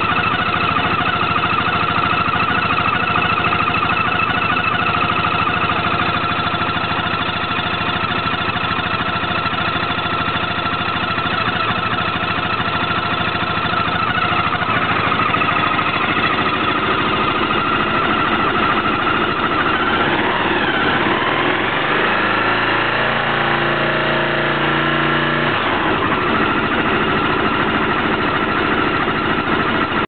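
Peugeot JetForce 125 scooter engine idling steadily with an abnormal noise coming from the engine area. Its tones dip and shift briefly about two-thirds of the way through.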